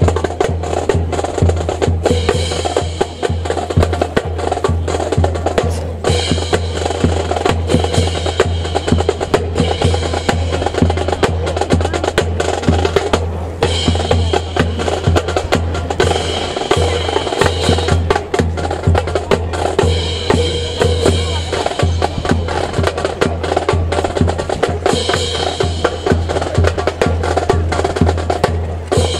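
Dense rhythmic clatter from a rifle drill team marching in step: boots striking the ground and rifles being handled in unison, a sharp wooden clicking going on without a break.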